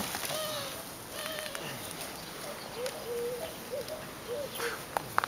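A dove cooing faintly, a run of low, wavering calls, with two sharp knocks near the end.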